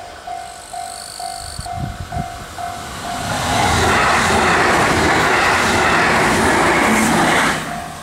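Level-crossing warning bell ringing about twice a second as a JR 783 series limited express electric train approaches; about three seconds in the train passes close by with a loud rush of noise that drowns the bell for some four seconds, and the bell is heard again near the end.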